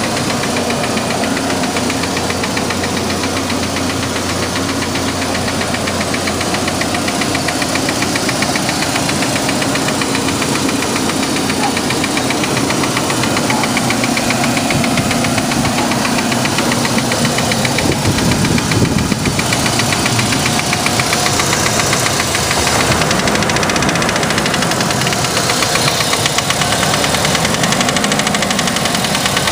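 2003 Chevy S10's 2.2-litre four-cylinder engine running with a fast, steady knocking rattle. The knock began after new spark plugs and wires were fitted in the correct order, and the owner suspects the rocker arms.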